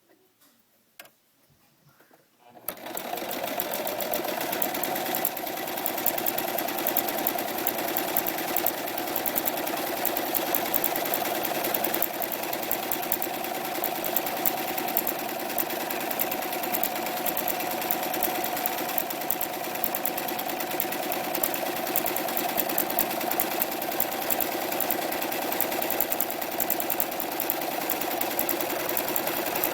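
A few faint clicks, then about two and a half seconds in a Euro-Pro 7132L electric sewing machine starts and runs steadily at a fast, even speed, stitching.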